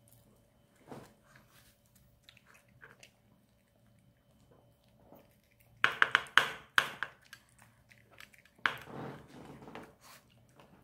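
A Maltese dog eating dog-friendly cheese tteokbokki from a spoon and plate. At first there are faint smacks and ticks, then a quick cluster of loud, sharp clicking chews about six seconds in, and another loud bite near nine seconds followed by chewing.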